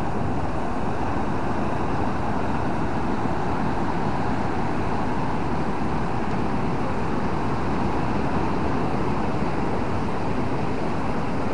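Steady rushing noise of wind and sea surf breaking along the reef, even and unbroken.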